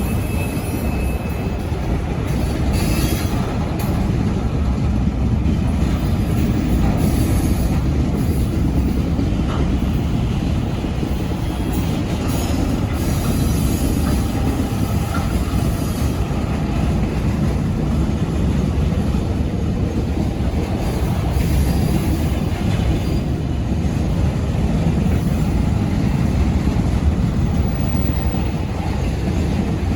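ChME3 six-cylinder diesel shunting locomotive shoving railcars back along a siding: a steady low rumble of the engine and rolling wheels, with a faint high wheel squeal about a second in.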